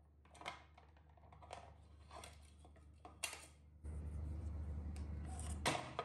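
Light plastic clicks and taps from a wall-mounted toothbrush holder and toothpaste dispenser as a toothbrush is handled and taken out, the sharpest about three seconds in and just before the end. A steady low hum comes in about four seconds in.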